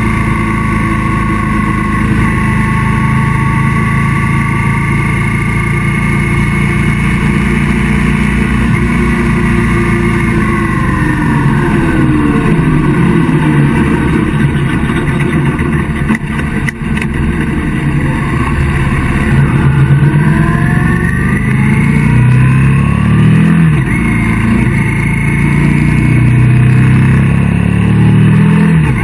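Motorcycle engine running on the road with steady wind rush. The engine pitch falls as the bike slows near the middle, then climbs again in stepped rises as it speeds back up through the gears.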